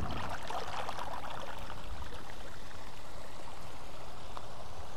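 A small mountain stream rushing steadily.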